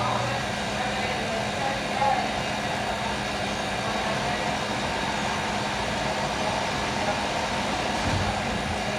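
Steady hum of a commercial kitchen machine running, with a constant low tone. A deeper hum cuts off just after the start.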